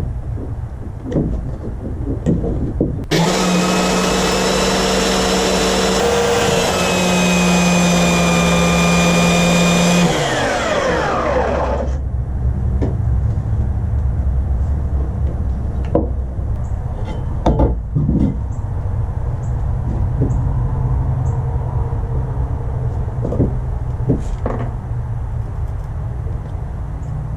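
An electric motor whirs at high speed for about seven seconds, then winds down with a falling pitch. Lower rumbling and scattered knocks come before and after.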